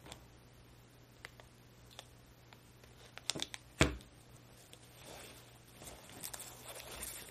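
Plastic blister pack of a mini iron plate being handled: scattered crinkles and light clicks, with one sharp knock a little under four seconds in as the pack is set down on a wooden table.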